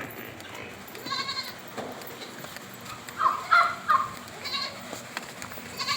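Livestock bleating: short, quavering calls about a second in, then a louder run of calls a few seconds in.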